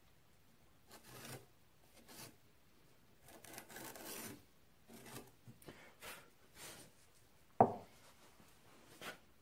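Irregular hand strokes of abrasive rubbing on wood, some short and one longer, with a single sharp knock about seven and a half seconds in.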